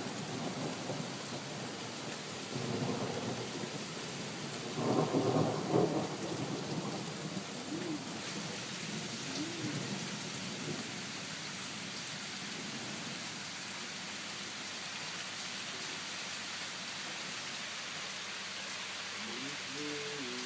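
Steady rain with thunder rumbling twice, the second rumble, about five seconds in, the louder. The rain hiss grows stronger about eight seconds in.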